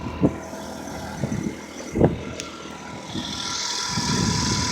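Motor scooter running, its noise building up from about three seconds in, after a few short sounds near the start.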